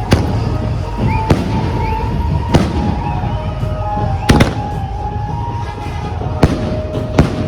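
Fireworks going off: about six sharp bangs at uneven intervals of a second or so, the loudest a little past the middle, over steady music.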